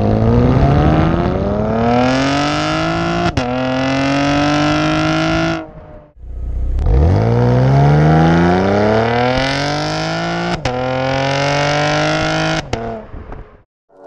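2016 Camaro's engine through its NPP dual-mode exhaust, with the valve fuse pulled so the valves stay open, in two full-throttle 0-60 runs heard at the tailpipes. Each run climbs steadily in revs, and the pitch drops sharply at each upshift with a short crack.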